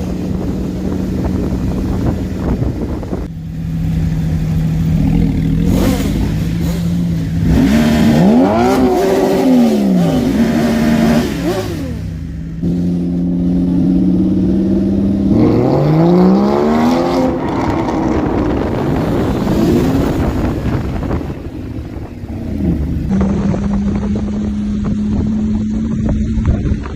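Motor vehicle engines idling steadily and being revved, several revs rising and falling in pitch, a cluster about a third of the way in and more past halfway.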